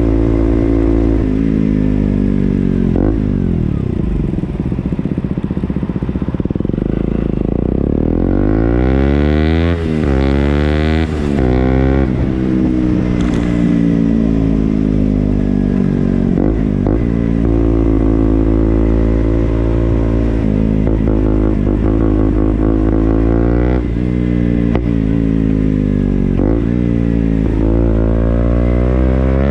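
KTM Duke motorcycle engine revving and pulling, its pitch climbing and dropping back again several times.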